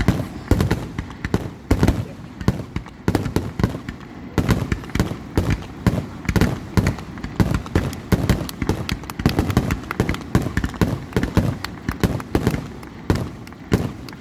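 Fireworks display: aerial shells bursting in rapid, irregular succession, several sharp bangs a second throughout.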